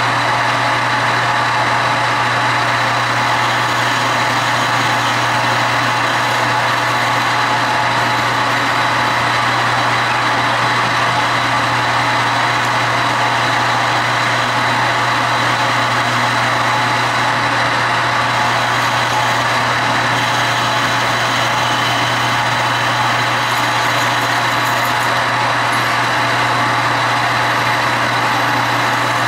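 Metal lathe running steadily through a machining cut: an even hum with a thin, steady high-pitched whine over it.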